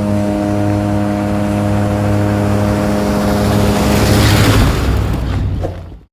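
Car engine sound effect: a loud engine running with a steady drone, its noise swelling about four seconds in, then cutting off suddenly near the end.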